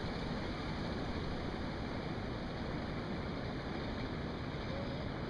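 Steady low rushing of wind on the microphone, with no distinct events.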